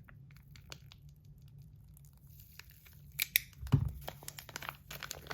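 Packaging being handled: scattered rustling and crinkling with small clicks. Louder crackles and a dull thump come about three and a half seconds in.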